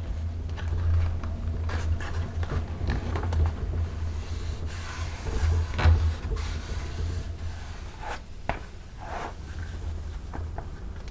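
Hand leatherworking at a bench: leather and tools rubbing and scraping, with scattered light clicks and knocks, over a steady low hum.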